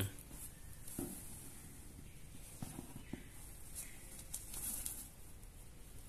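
Faint rustling and a few soft knocks of a pigeon being handled and lifted out of a cardboard box lined with cloth.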